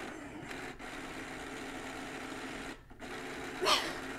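BEED automatic joint-rolling machine running its roll cycle: a steady motor whir with two brief cut-outs. A short vocal exclamation breaks in near the end.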